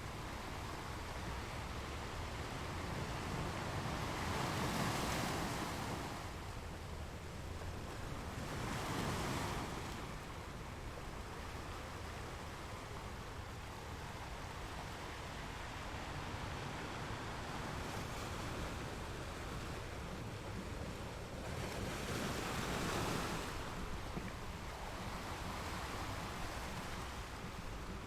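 Sea waves washing onto the shore, a steady surf hiss with three waves swelling and breaking, about 5 s, 9 s and 23 s in.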